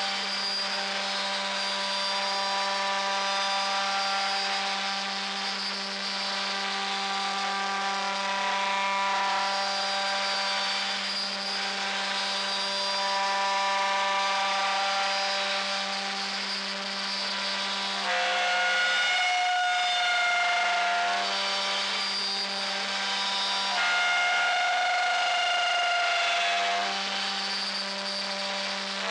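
CNC router spindle running steadily with a high whine as its cutter routes a slot through MDF, with a vacuum hose sucking up the dust at the start. Twice in the second half the tone shifts to a different, higher whine for a few seconds.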